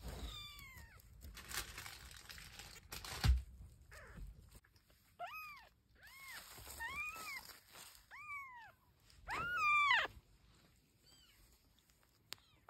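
Young kittens mewing: about seven short, thin calls that rise and fall in pitch, the loudest about nine and a half seconds in. Rustling and a sharp knock in the first few seconds.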